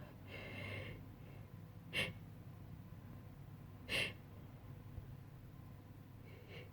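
A person's quiet, shaky breathing while building up to a sneeze, with two short sharp gasping intakes about two seconds apart.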